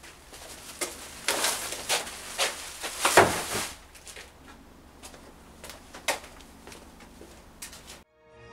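Knocks, clicks and rustles of a black bin bag going into a plastic wheelie bin, with the loudest knock about three seconds in and a few lighter knocks afterwards.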